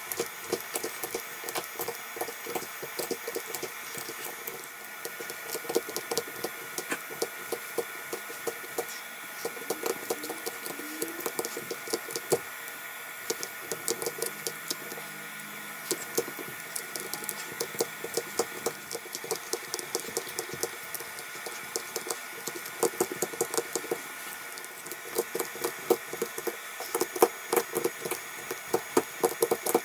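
Small hand tools clicking and scraping against a phone's cracked glass back in quick, irregular strokes, over a steady hum.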